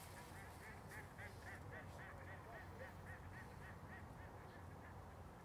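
Faint, distant waterbird calls over a quiet lake: a quick run of short repeated calls, about four a second, fading out after a few seconds.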